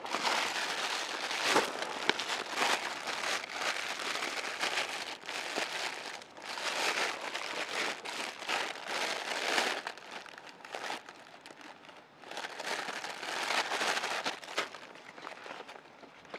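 Irregular crinkling and rustling of something being handled, in uneven bursts; it thins out about ten seconds in and picks up again briefly before fading.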